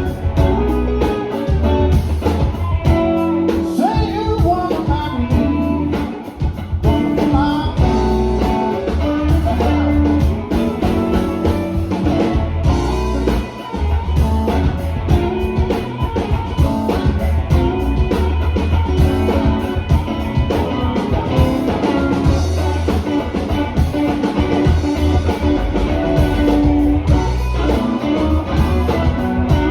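Live blues band playing a song, electric guitar over bass and drum kit.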